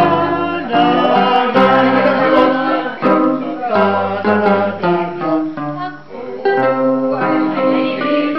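A group of voices singing together from song sheets, accompanied by chords on an electronic keyboard.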